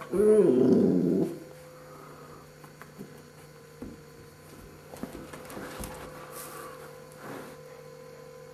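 Australian Shepherd giving one drawn-out, pitched vocal sound of about a second near the start, then only faint small noises over a steady electrical hum.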